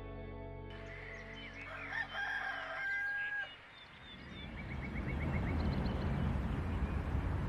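Soft ambient music fades out, and about two seconds in a rooster crows, one call with long held notes. A low steady rumble then rises.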